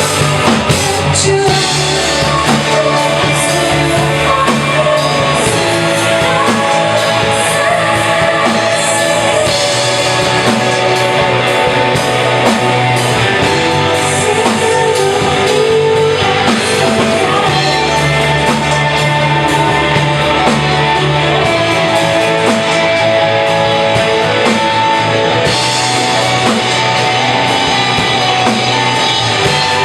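Rock band playing live: electric guitar, bass and drums, with singing.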